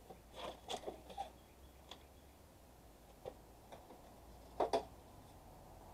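Faint, scattered clicks and taps of metal parts being handled as an air conditioner unit is taken apart by hand, with a louder double click about four and a half seconds in.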